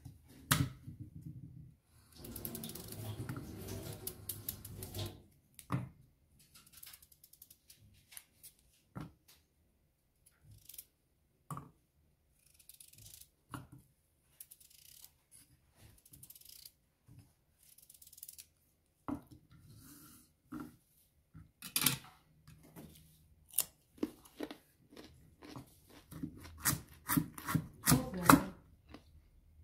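Kitchen knife cutting raw carrots on a wooden cutting board: scattered knocks of the blade on the board and rough scraping cuts through the carrot, then a quick run of chopping strokes near the end.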